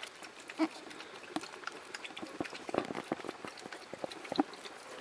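Small dog feeding at a plastic bowl: irregular wet clicks and smacks of its mouth at the bowl, with a few louder knocks.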